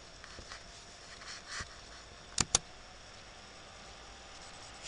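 Two sharp clicks in quick succession about halfway through, like a computer mouse button being double-clicked, over a faint steady hiss with a few soft rustles before them.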